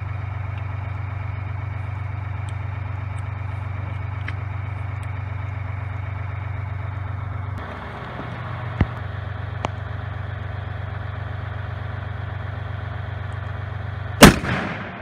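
A steady low mechanical hum, with two light clicks about a second apart past the middle. Near the end comes a single very loud shot from a Serbu RN-50 .50 BMG rifle, with a short echo after it.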